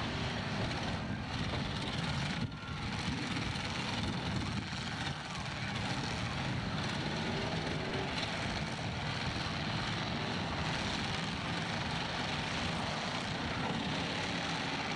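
Many car engines running and revving together in a dirt arena, a dense steady mechanical noise with no single engine standing out.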